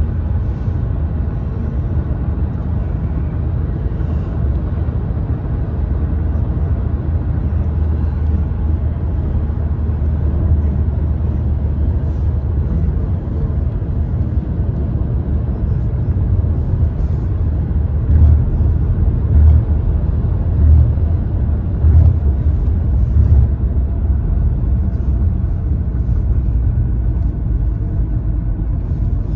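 Road noise inside a moving car's cabin: a steady low rumble of tyres and engine, with a few louder low thumps about two-thirds of the way in.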